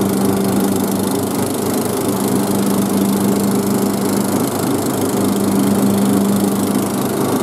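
Cub Cadet 1170 lawn tractor's single-cylinder 17 hp Briggs & Stratton engine running steadily under load while mowing grass, with the hum of the mower deck underneath.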